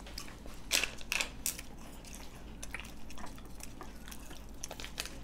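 Scattered short clicks and crackles of people eating chocolate and peeling foil wrappers, irregular and a little louder about a second in.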